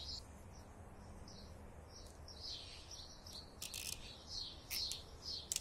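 Small birds chirping in the background. In the last two seconds come a few short zipping clicks from a cable tie being pulled tight around a motorcycle front brake lever, which holds the lever squeezed so the remaining air can work out of the brake line.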